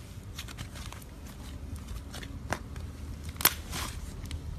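Slime being handled, giving scattered small crackling pops and clicks, the loudest about three and a half seconds in.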